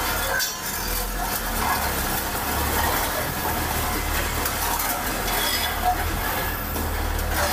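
Bomag road roller's diesel engine running steadily.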